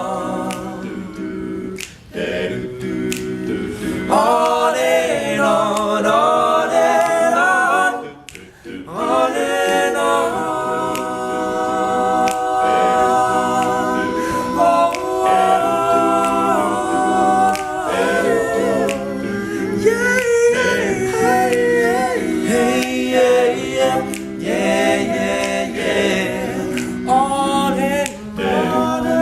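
An all-male a cappella group singing wordless backing chords, held and shifting, with sharp clicks keeping the beat.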